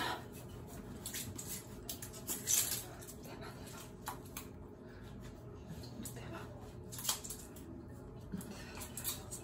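A towel rubbing over a wet poodle's fur: intermittent short scratchy rustles with small clicks and scrapes in between, the loudest about two and a half seconds in.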